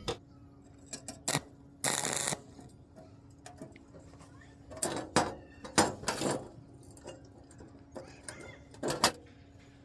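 Metal pieces being handled and set down in a workshop: scattered clinks and knocks, with a short scraping burst about two seconds in, over a faint steady hum.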